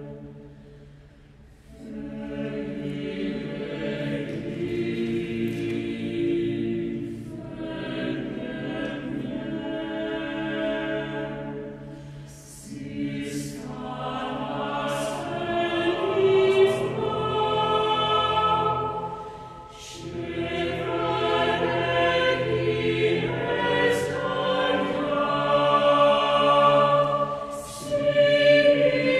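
Choir singing an Icelandic hymn in slow phrases of held chords, with short breaks between phrases and crisp 's' consonants.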